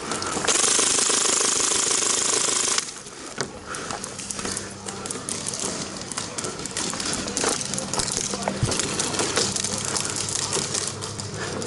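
Classic Army M132 Microgun, a gas-powered airsoft minigun, firing one continuous burst of about two seconds. Scattered clicks and rattling follow.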